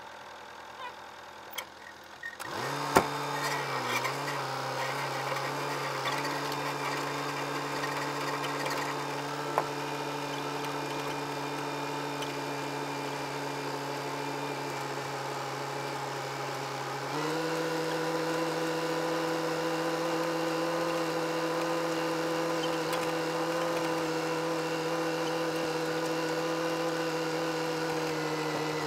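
Massey Ferguson 265 tractor's three-cylinder Perkins diesel running with its mounted sprayer: about two and a half seconds in the engine note jumps from idle to a steady, even-pitched drone. About 17 seconds in it steps up again, higher and louder, as the revs are raised.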